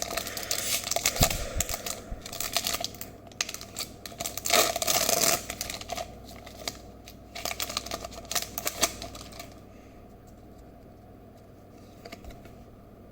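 Foil Pokémon TCG booster pack wrapper being torn open and crinkled, in a run of sharp crackling rips and rustles that stops about nine and a half seconds in, leaving only faint handling.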